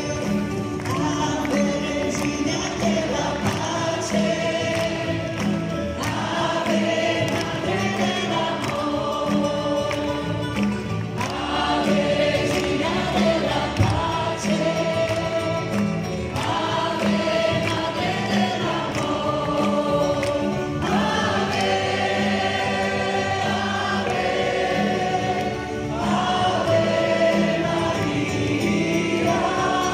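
A congregation and a worship band singing a Marian hymn together, many voices over keyboard accompaniment.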